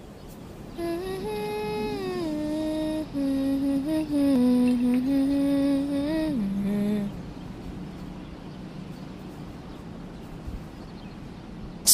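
A single voice humming a slow, wordless melody of held notes that slide from one pitch to the next, for about six seconds, followed by faint hiss.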